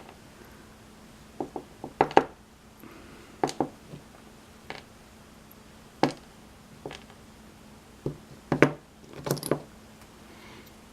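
Small metal clicks and taps, irregular and spread out, of tools and pin-tumbler lock parts being handled while the lock is taken apart. The loudest tap comes about two thirds of the way in, with a quick cluster of clicks just after.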